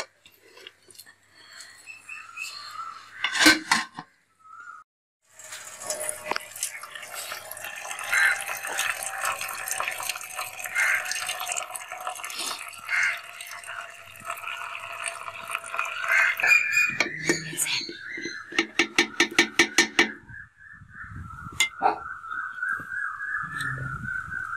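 Starchy cooking water pouring out of an aluminium pot of boiled rice as the lid is held against the rim to drain it, with metal pot-and-lid clinks. Near the end a quick run of clicks follows.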